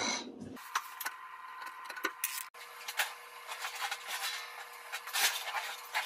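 Built-in dishwasher being worked out of its cabinet opening: scattered clicks, knocks and scraping, with a louder rustle at the start.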